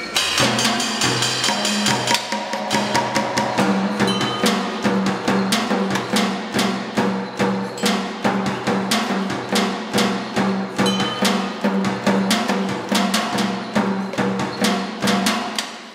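Robotic percussion installation striking found objects such as metal bowls, pans and drums in a dense, steady rhythm of many sharp hits a second. A low pitched thud repeats regularly underneath.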